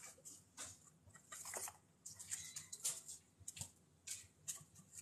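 Faint, irregular scratching and rustling as chinchillas shuffle in a tray of bath dust on wood shavings, in short scuffs about every half second.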